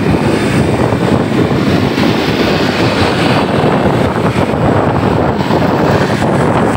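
Wind buffeting the microphone on a moving motorcycle: a loud, steady rush with the motorbike's engine and road traffic underneath.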